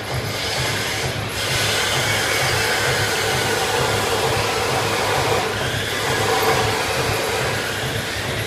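Paper blank punching machine for ice cream cone sleeves running, a steady mechanical clatter with a regular low beat from its punching stroke as the paper web feeds through.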